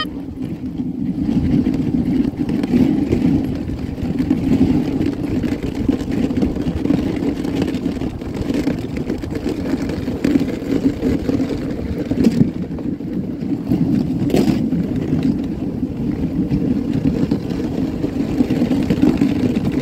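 Dog sled runners sliding over packed, groomed snow: a steady, rough rumbling hiss, with a brief click about fourteen seconds in.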